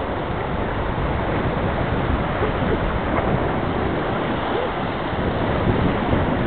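Steady rush of whitewater river rapids around a raft, with wind buffeting the microphone.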